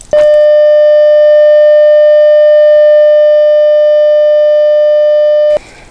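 Loud, steady electronic beep tone, one unchanging pitch with overtones, held for about five seconds and cut off sharply. It is a sound effect laid over a barcode graphic.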